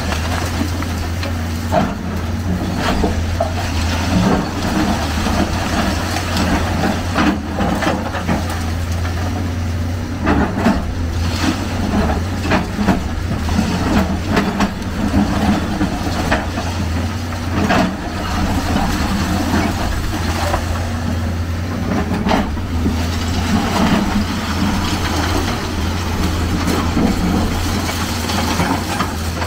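Hyundai crawler excavator's diesel engine running steadily under load while its attachment breaks up a concrete building, with frequent irregular cracks and crunches of concrete and rubble breaking and falling.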